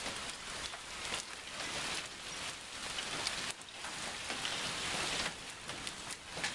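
Rain falling during a thunderstorm: a steady hiss with many small ticks of drops striking close by.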